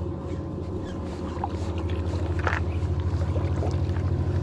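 A steady low engine hum that grows a little louder, with one short tick about two and a half seconds in.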